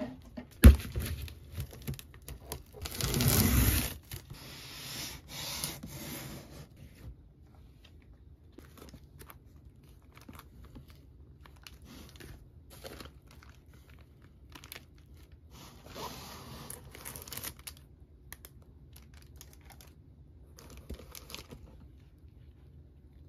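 A sharp knock just under a second in, then packing tape tearing off a cardboard box for about a second and a half around three seconds in. After that comes intermittent rustling and crinkling of plastic bags and bubble wrap as the items are unpacked.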